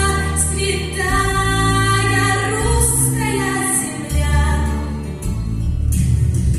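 Young teenage vocal group singing together in held, sustained notes over an instrumental backing with a bass line that moves every second or so.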